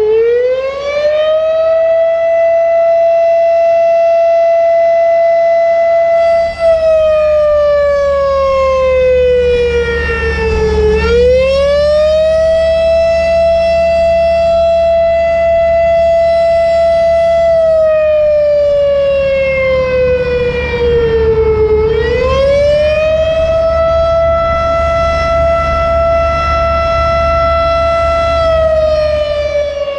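Federal Signal Thunderbeam (RSH-10) outdoor warning siren, which has a broken reflector disc, sounding a slow rise-and-fall wail of the attack signal. Its pitch climbs, holds high for about five seconds, then slides down, three times over, about every eleven seconds.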